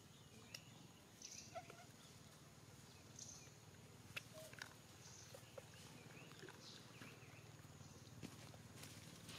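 Near silence: faint outdoor ambience with a steady low hum, scattered short faint chirps and squeaks, and a few small clicks.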